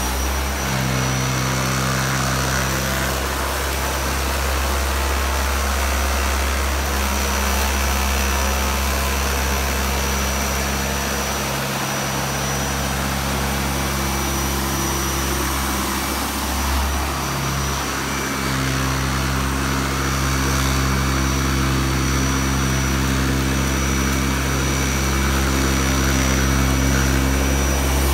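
Dyson Cinetic Big Ball vacuum cleaner running steadily with a high whine as it vacuums pine needles off short-pile carpet.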